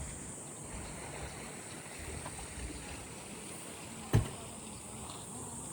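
Outdoor ambience: a steady high-pitched insect buzz over a low rumble, with one sharp knock about four seconds in.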